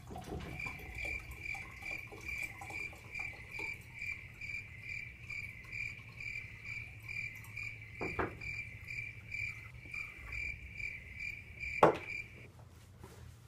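A high chirping tone pulsing about three times a second, cutting off suddenly near the end, with two sharp knocks of glassware as beakers are handled, the second the louder.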